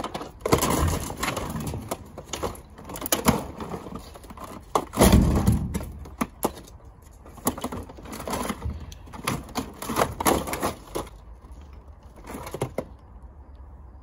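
Hard plastic and metal parts of a pile of discarded vacuum cleaners clattering and knocking together as it is rummaged through and an old upright vacuum is pulled out. A heavier thump comes about five seconds in, and the clatter thins out near the end.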